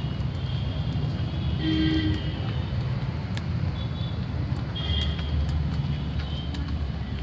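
Distant traffic rumbling steadily, with several short honks of vehicle horns, the loudest about two seconds in.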